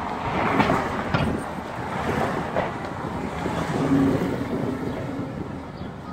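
Road and traffic noise of a car driving along a city street, with wind buffeting the microphone and a few short knocks about a second in.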